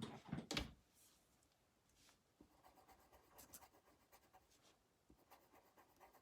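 Colored pencil scratching on paper in quick back-and-forth strokes while colouring in a shape. A few sharp knocks come in the first second.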